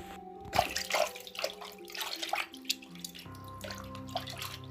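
Soft background music with long held notes, over a scatter of short clicks and knocks as a hose end is handled and pushed onto a pump's pipe fitting.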